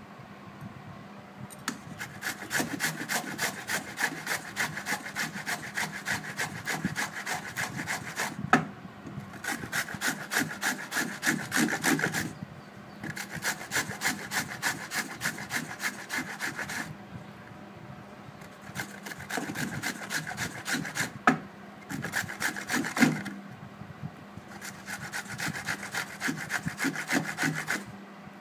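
Peeled raw mango being grated by hand on a grater: quick, rhythmic rasping strokes in spells of a few seconds, with short pauses between them.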